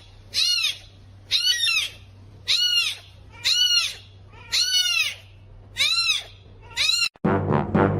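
A small animal giving about eight short, high-pitched cries in a steady series, roughly one a second, each call rising and then falling in pitch.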